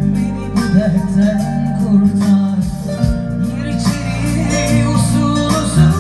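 Korg Pa4X arranger keyboard playing live music in an acoustic style, with a steady bass line and percussion under a keyboard melody.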